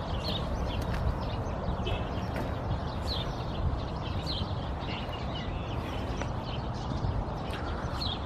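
Diesel engine of a 1982 Mack R-series dump truck idling steadily, with a few short bird chirps now and then.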